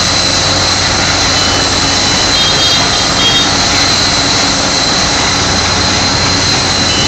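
Speedcrafts spray-injection pothole patching machine at work: a steady, loud rush of air as its blower drives aggregate out through the boom nozzle onto the road, over a running engine's hum, with a high steady whine throughout.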